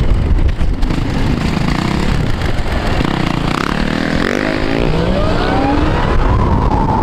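Dirt bike engine revving up, its pitch climbing in a few steps during the second half and holding high near the end, over a steady rush of road and wind noise.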